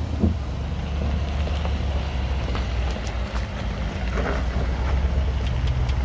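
Range Rover Sport crawling slowly over loose gravel and rocks: a steady low engine rumble, with the occasional crackle of stones under the tyres.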